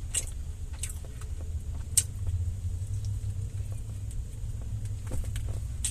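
Car engine idling, a steady low rumble heard from inside the cabin, with scattered small clicks and one sharp click about two seconds in, as the person eats.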